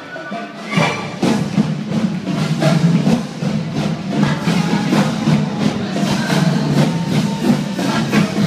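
Upbeat parade music played over the float's sound system, with a steady percussive beat.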